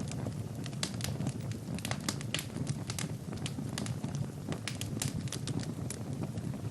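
Wood fire burning in a fireplace: irregular sharp crackles and pops from the burning logs over a low, steady rumble of the flames.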